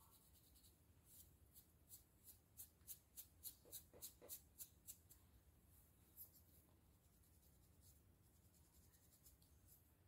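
Faint scratching of a fine-tooth comb through a dry, itchy, flaking scalp: a quick run of about a dozen short strokes, roughly three a second, then a few softer scrapes.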